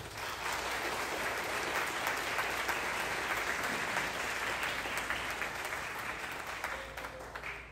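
Audience applause, many people clapping together, dying away near the end.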